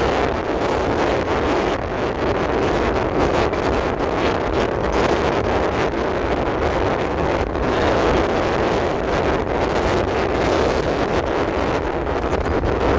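Steady road and wind noise from a moving car, with wind buffeting the microphone.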